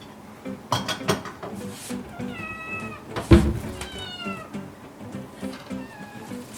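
Kitten meowing to be fed: two drawn-out high meows about two and four seconds in, the second falling in pitch, then a short faint one near the end. A loud thump comes between the first two meows, over background music with a steady beat.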